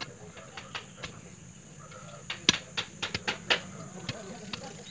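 Steel digging bar driven into the soil of a post hole: a string of sharp knocks, a few scattered, then a quick run of about half a dozen about halfway through.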